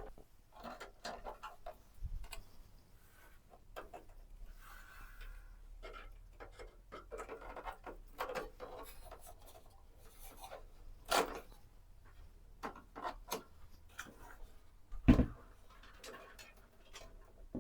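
Computer parts and the case being handled during assembly: scattered small clicks, scrapes and rubbing, with two louder knocks, one about eleven seconds in and a sharper one about fifteen seconds in.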